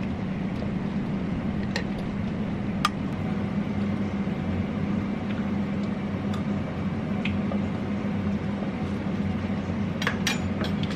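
Scattered light clinks and taps of kitchenware as seasoned spinach is mixed together in a bowl, with a cluster of them near the end, over a steady low hum.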